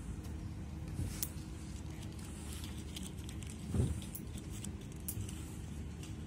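Low, steady outdoor background rumble with a few faint clicks and one dull thump about four seconds in.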